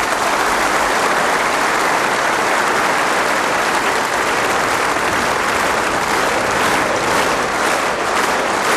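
Large audience applauding in a steady, dense ovation. Near the end, a faint regular beat shows through the clapping.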